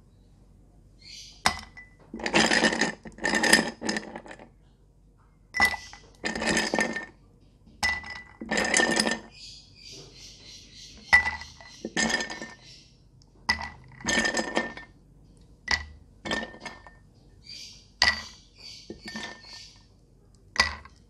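Ice cubes lifted with tongs from a glass ice bucket and dropped into a glass jar of coffee, a dozen or so times: each lands with a sharp glassy clink, often followed by a short rattle of ice against glass.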